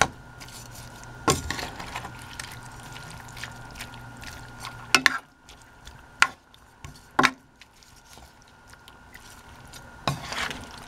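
Spatula knocking and scraping in a nonstick pan of simmering chicken-and-vegetable curry: irregular sharp knocks a second or a few seconds apart. Under them runs a steady low hum that cuts off about halfway.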